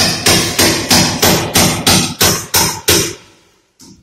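Rapid, steady hammer blows, about four a second, stopping about three seconds in.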